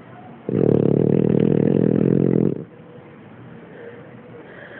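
French bulldog snoring: one loud, rattling snore about two seconds long starting about half a second in, then quieter breathing until the next snore.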